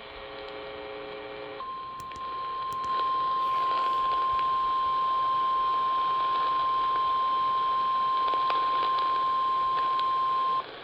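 NOAA Weather Radio 1050 Hz alert tone, one long steady beep of about nine seconds over radio static, sounding the attention signal for a flash flood warning. It follows a short buzz of about a second and a half.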